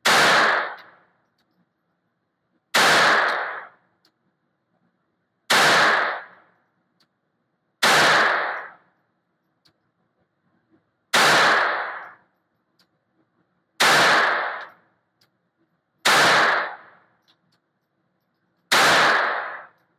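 Eight shots from a Beretta 21A Bobcat .22 LR pocket pistol, fired slowly and evenly about two to three seconds apart. Each sharp crack is followed by a short echo off the indoor range.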